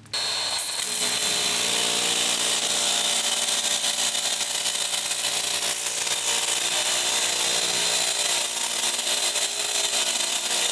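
DeWalt DCPW550 20 V cordless pressure washer running, its electric motor and pump humming steadily with a high whine over it. Water sprays from the 25-degree fan nozzle onto a truck's bumper. The sound starts suddenly right at the beginning as the trigger is pulled.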